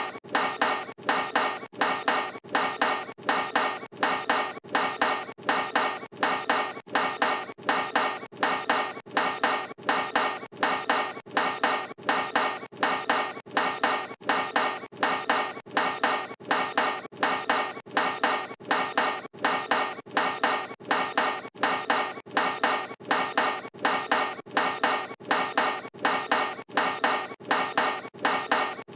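Basketball striking a metal hoop rim again and again, a sharp clank with a brief metallic ring nearly twice a second at a perfectly even pace: the 'brick' of a missed shot bouncing off the rim, looped.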